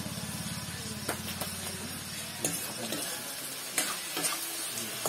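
Food sizzling in a hot wok on a gas stove, with a few sharp knocks and scrapes of a utensil against the pan. A low hum underneath dies away about halfway through.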